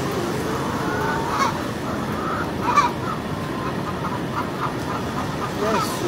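Many caged laying hens calling at once, a dense din with a few sharper calls standing out, the loudest near the middle.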